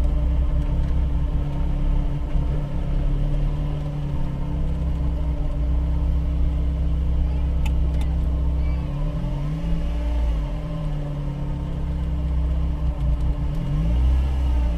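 Motor vehicle engine running over a low rumble, its pitch dipping and rising a few times. Two short clicks come about eight seconds in.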